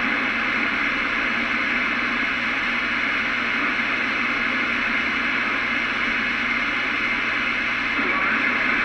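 CB radio receiver hissing with static between transmissions, a steady even band noise with no voice coming through.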